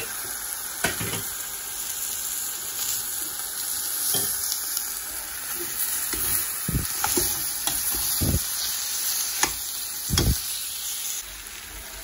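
Chopped tomatoes and onion-spice masala frying with a steady sizzle in a heavy black pot, stirred with a metal slotted spatula that scrapes and knocks against the pot several times. The sizzle drops a little near the end.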